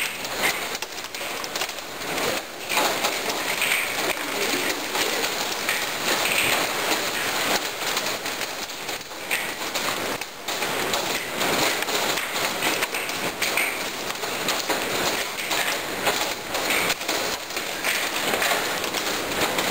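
Hail and heavy rain pelting down in a hailstorm: a steady, dense clatter of many small impacts over a hiss of rain.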